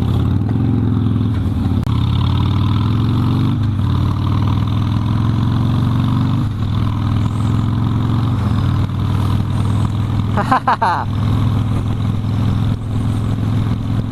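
Harley-Davidson Sportster V-twin engine running under way on the road, its note steady apart from a few changes in pitch. A brief, quick rising whine comes about ten seconds in.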